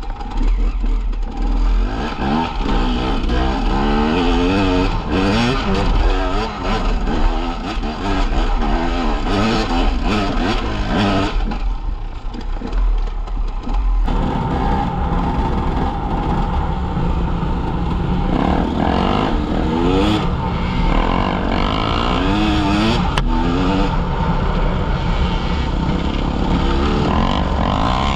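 KTM EXC enduro motorcycle engine revving up and down again and again on a dirt trail, with wind on the microphone.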